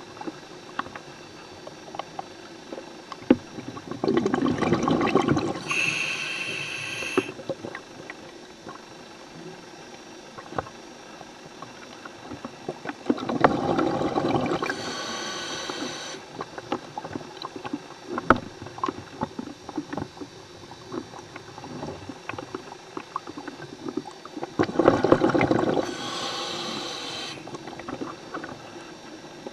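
Scuba diver breathing through a regulator underwater: three breaths about ten seconds apart, each a rush of exhaled bubbles together with a hiss from the regulator. Small sharp clicks are scattered in between.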